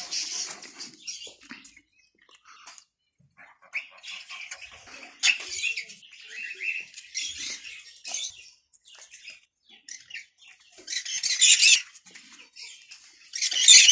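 Caged birds chirping and squawking in irregular bursts, busiest around eleven seconds in and again at the end.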